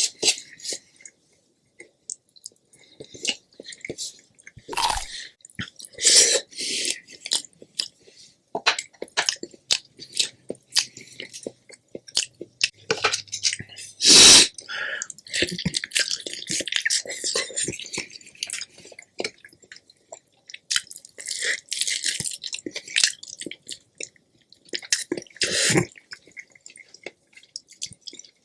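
Close-up chewing and biting of food: wet smacking mouth sounds and short crunchy clicks, irregular throughout, with one much louder sharp sound about halfway through.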